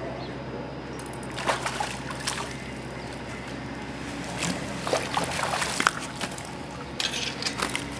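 Water splashing and sloshing in irregular bursts as a hooked fish thrashes at the surface and is scooped up in a hand landing net.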